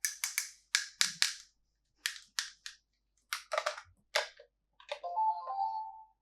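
Hard plastic toy pieces clicking and tapping in quick groups, then near the end a short electronic tune or chime from the Anpanman toy kitchen car.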